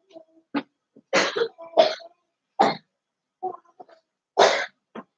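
A person coughing and clearing their throat: a series of short, harsh coughs about a second apart, with gaps of quiet between them.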